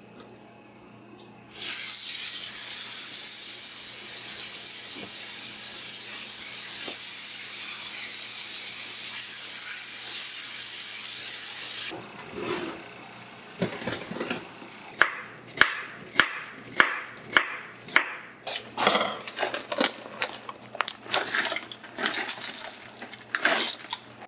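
Kitchen tap running in a steady hiss for about ten seconds, then shutting off, followed by a run of sharp knocks about twice a second.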